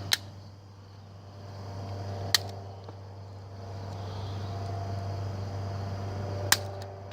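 Multitool wire cutters snipping thick-gauge wire: three sharp snaps, a couple of seconds apart, over a steady low hum.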